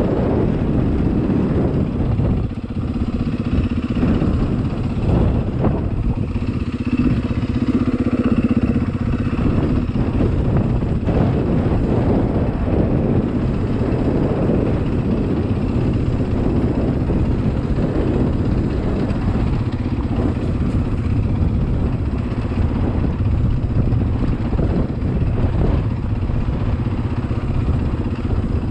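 Dirt bike engine running steadily as the bike rides down a rough, rocky trail, with occasional knocks from the ground.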